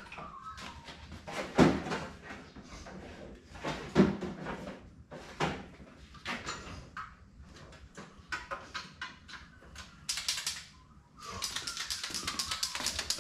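Metal tools clattering and knocking as a steel tool chest is rummaged through, with two sharper knocks about a second and a half and four seconds in. From about eleven seconds in, a fast, even rattling begins: a paint marker being shaken, its mixing ball clicking inside.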